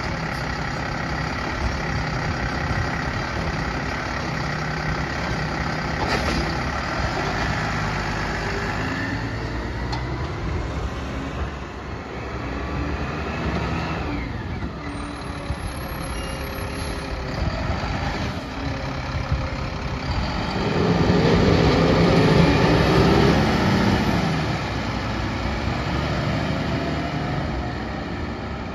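Mack LR side-loader garbage truck's engine running, first at idle, then pulling away and accelerating, loudest with a rising engine note about two-thirds of the way through before fading.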